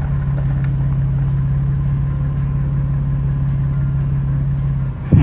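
Vehicle engine and road noise heard from inside the vehicle while driving a forest road: a steady low drone. Near the end the drone drops and there is a brief sharp thump.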